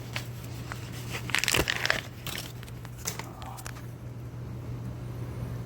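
Plastic packaging crinkling and crackling in short bursts as a tool is unwrapped and handled. It is busiest from about one and a half to two seconds in, then thins out to a few light clicks.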